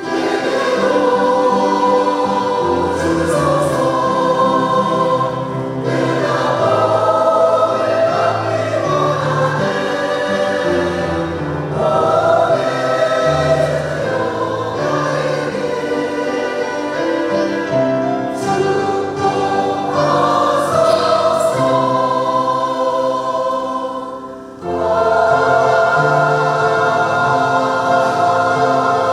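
Church choir singing a hymn anthem in several parts with accompaniment, held chords phrase after phrase; the singing briefly drops away near the end, then comes back in full.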